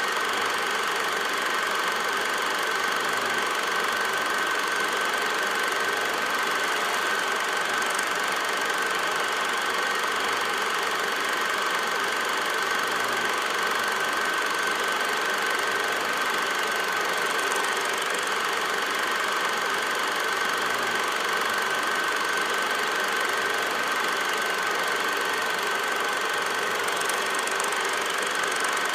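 Steady mechanical running noise with a constant high whine, unchanging in level and pitch throughout.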